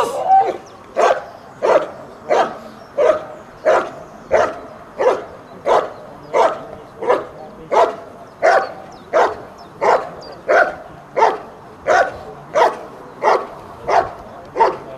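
German Shepherd barking hard and steadily at a motionless protection helper, one bark about every two-thirds of a second: the dog's guarding bark-and-hold after releasing the bite sleeve.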